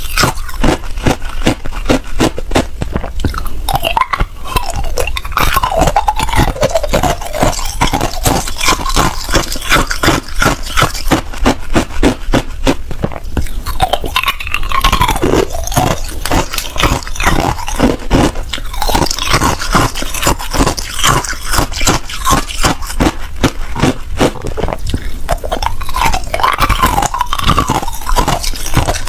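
A person chewing and biting ice: a steady run of sharp, loud crunches, several a second, as the ice cracks between the teeth.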